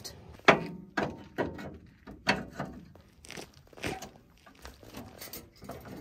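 A series of irregular knocks and crunches, about a dozen over six seconds, louder in the first half.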